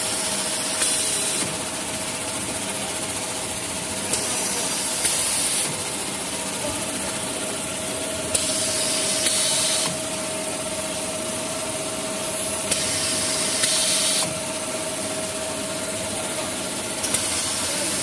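Automatic maxi roll tissue band saw cutting machine running with a steady hum and whine. About every four seconds a burst of hiss sets in, each starting with a click and lasting about a second and a half, in time with the machine's repeating cycle.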